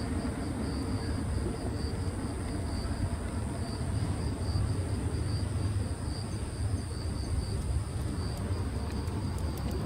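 Insects chirping in an even rhythm, about two chirps a second, with a steady high drone over a low rumbling background.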